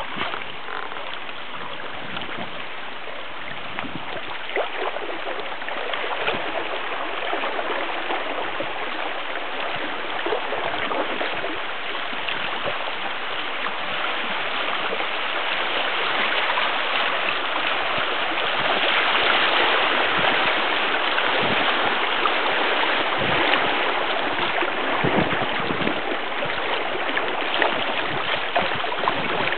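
Shallow creek rapids rushing around a canoe, growing louder past the middle as it runs into rougher water. Scattered short splashes of paddle strokes.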